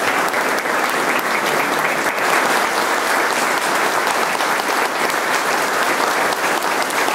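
Large audience applauding, dense and steady clapping with no break.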